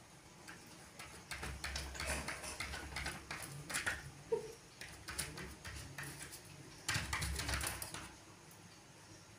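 Dog scratching and pawing at a wooden door, its claws making rapid scraping taps with dull thumps against the door, asking to have it opened. The noise comes in two bouts, the second, starting about seven seconds in, with heavier thumps.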